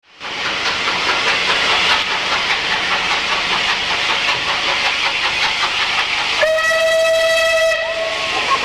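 Steam locomotive hissing loudly and steadily as steam escapes. Its whistle sounds one steady note for about a second and a half, some six seconds in.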